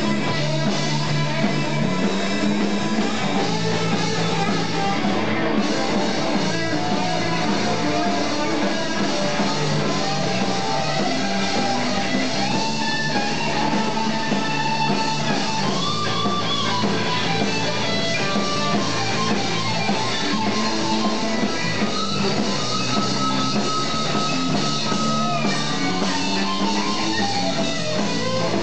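Live rock band playing: electric guitar taking long held lead notes that bend in pitch, over drums.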